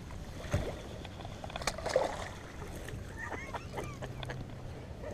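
Scattered knocks and bumps on a fishing boat with light water splashing. A low steady hum comes in a little past the middle.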